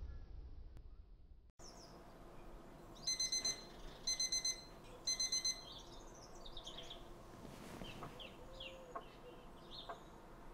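Smartphone alarm beeping in three short bursts of rapid electronic beeps, then stopping, with birds chirping in the background.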